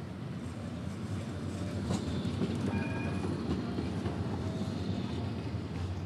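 A city tram rolling past: a low rumble of wheels on rail that swells and fades, with a sharp click about two seconds in and a brief high squeal near the middle.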